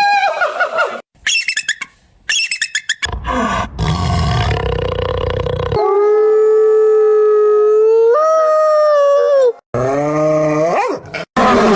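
A run of animal calls cut together: quick repeated yelps, a rough low growling stretch, then one long steady howl that steps up in pitch partway through, followed by a short rising call.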